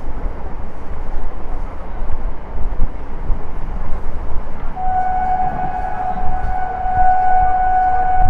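Electric multiple unit (EMU) local train running at speed, a steady loud rumble of wheels on rail heard from the open doorway. About five seconds in, a train horn starts and holds one long steady note.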